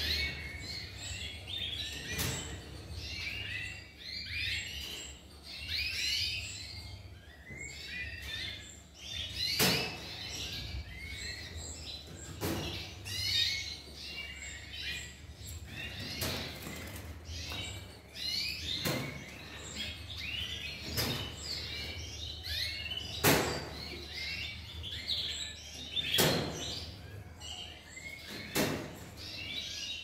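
Many Yorkshire canaries chirping without pause, with a sharp plastic click or knock every two to three seconds as tube drinkers are unhooked from and hooked back onto the wire cage fronts.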